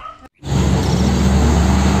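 Diesel tractor-trailer truck hauling a shipping container, its engine running with road and tyre noise as it drives. The sound starts suddenly about half a second in, after a brief gap.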